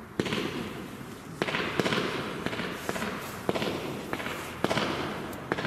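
WECO Stardust compound firework cake firing shot after shot: about nine sharp launch bangs, roughly one every half second to second, each followed by a fading hiss.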